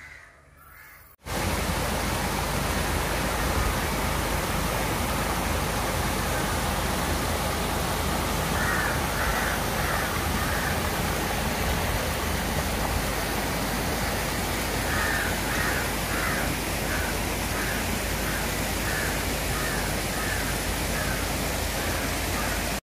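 Stream rushing over rocks in small rapids: a loud, steady rush of water that starts suddenly about a second in.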